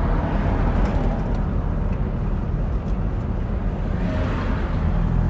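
Car engine and road noise heard from inside the cabin while driving, a steady low rumble.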